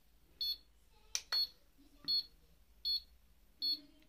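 Handheld mini HIFU face-tightening device beeping as it fires its ultrasound shots into the cheek: short high beeps about every 0.8 seconds, five in all. A single sharp click comes about a second in.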